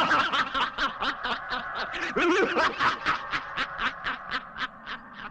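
A costumed alien villain's mocking laugh: a rapid, rhythmic 'ha-ha-ha' of about five beats a second, echoing, that grows gradually fainter toward the end.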